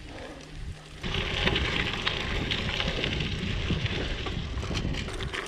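Mountain bike tyres rolling fast over loose gravel: a dense, crackling crunch of stones under the tyres that gets suddenly louder about a second in, over a low rumble.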